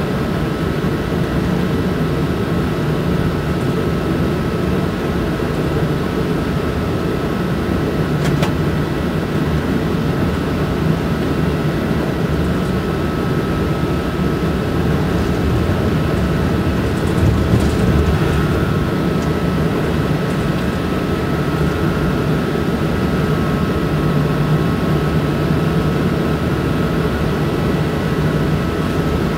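Cab interior of an SNCF BB 27300 electric locomotive under way: a steady rumble of wheels and running gear on the track, with a faint steady high whine over it. A single click about eight seconds in.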